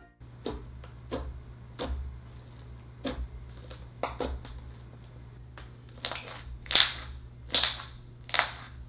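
Freshly reactivated clear slime being squeezed and stretched by hand, giving a series of irregularly spaced sharp, wet pops and clicks; the loudest pops come in the last few seconds.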